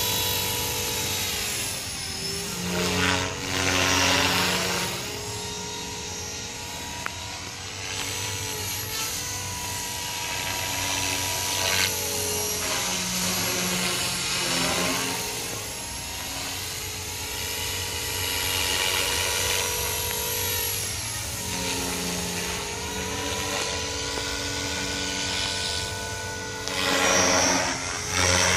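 Blade 500 electric radio-controlled helicopter in flight: a steady motor-and-rotor whine with blade whoosh. Its pitch dips and climbs back about four times as it manoeuvres, and it is loudest a few seconds in and again near the end.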